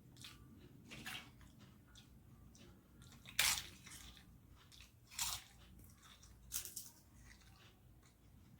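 Close-miked eating: a person biting and chewing crisp fried papad, with four loud crunches a second or two apart and soft chewing clicks between them.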